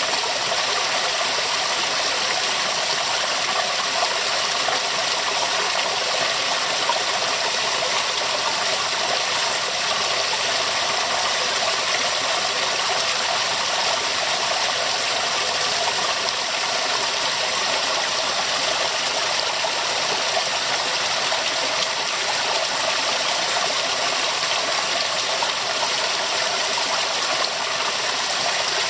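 Waterfall: water pouring and splashing in a steady, unbroken rush, mostly hiss and splash with little deep rumble.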